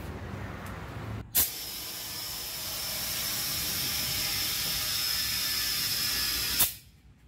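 Compressed air hissing through an air chuck into a truck tyre's inner tube, with a steady high whistle. It starts sharply about a second in, runs for about five seconds and cuts off suddenly near the end.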